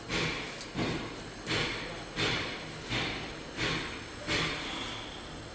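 A rhythmic series of short scraping or brushing strokes, about eight in a row, one every three quarters of a second. Each stroke starts sharply and fades quickly.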